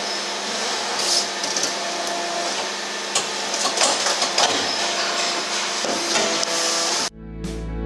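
Battenfeld hydraulic injection moulding machine running through its cycle: a steady hum and hiss from the hydraulics with several clicks and knocks as the mould opens. It cuts off suddenly near the end, giving way to plucked-guitar music.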